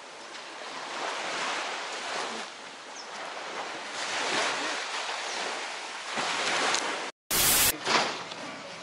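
Small waves washing onto a sandy beach: a soft hiss that swells and fades every couple of seconds. Near the end the sound drops out for a moment, followed by a short loud burst of hiss.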